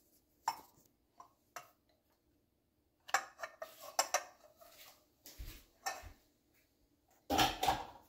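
Clinks and knocks of a pour-over coffee dripper and cup being handled and set down: scattered sharp clicks, then a loud clatter near the end.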